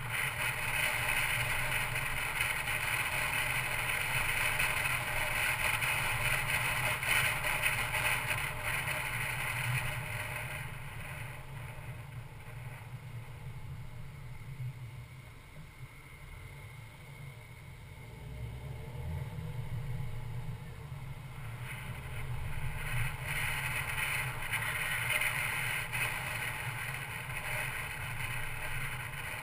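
Mercedes-Benz C250 Coupe driving: steady road and wind noise that drops quieter through the middle as the car slows for a roundabout, then rises again as it picks up speed.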